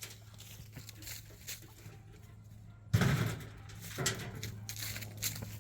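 A single loud clunk about three seconds in, with a few lighter clicks and rattles after it, as parts from a microwave oven are handled and tossed aside during scrapping. A low steady hum runs underneath.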